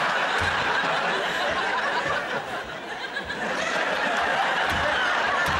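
Studio audience and panellists laughing hard and steadily. The laughter eases briefly a little after halfway, then swells again.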